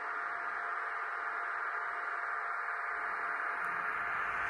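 Fleischmann N-gauge model of the SNCF BB 22241 electric locomotive running on its track: a steady hiss with a faint constant whine.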